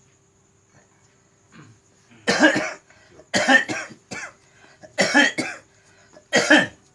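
A person coughing hard, four harsh coughs about a second apart starting about two seconds in, several breaking into a quick double.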